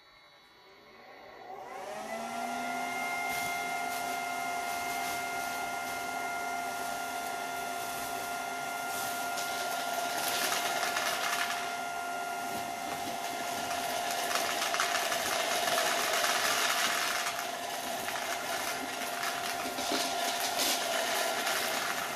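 Small electric fan in the side canister of a homemade seed cleaner spinning up with a rising whine about two seconds in, then running at a steady pitch. Seeds poured into the top funnel rattle and hiss down through the wooden baffles in several stretches over the fan, with the air blowing the chaff from the seed.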